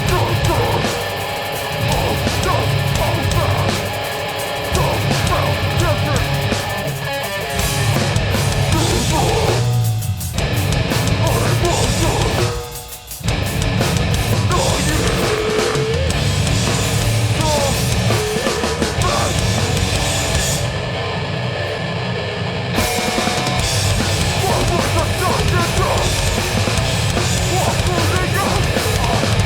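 Metallic hardcore band playing live at full volume: heavy distorted guitars, bass and pounding drums, with two brief stops about ten and thirteen seconds in before the band crashes back in.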